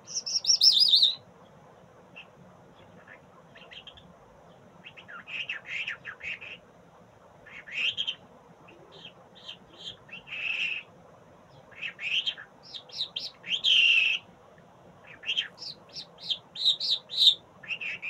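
A caged songbird singing in short bursts of quick, high chirps and trills, separated by brief pauses. A loud, high phrase that falls in pitch opens the song in the first second, and another loud burst comes about two-thirds of the way through.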